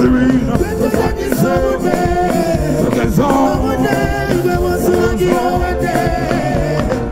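Live band music with a male lead singer singing into a microphone, heard through the stage sound system.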